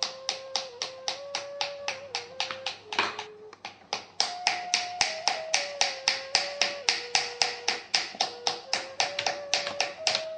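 Potter's paddle beating the shoulder of a Yixing clay teapot body in quick, even taps, about four or five a second, with a short break about three seconds in; this paddling draws the top of the pot inward.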